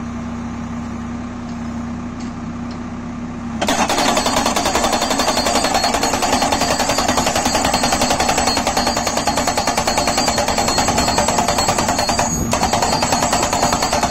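A tractor-mounted hydraulic post driver runs with a steady hum, then about four seconds in breaks into loud, rapid hammering as it drives a steel crash-barrier post into stony ground. The hammering stops for a moment near the end and starts again.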